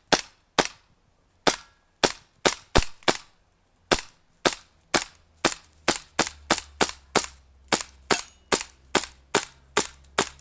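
A small gun fired again and again: sharp single cracks, a few spaced out at first, then a steady string of about three shots a second.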